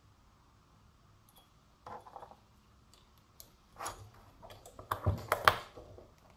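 Small metallic clicks and taps as a valve keeper insertion tool is pressed and wiggled down onto a titanium valve spring retainer on a 139QMB scooter cylinder head, seating the valve keepers. A few scattered clicks start about two seconds in, then comes a quick cluster, with the two loudest about a second before the end.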